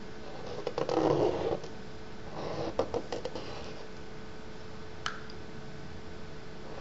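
A thin wooden stick loaded with ink scratching and scraping across paper in two bursts, the first about a second in and louder, the second around three seconds in, with a few sharp ticks. A single click near five seconds, over a steady background hum.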